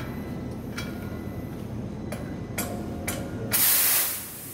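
Medical oxygen cylinder valve being opened with a cylinder key: a few brief hisses of escaping oxygen, then one loud hiss lasting about half a second near the end.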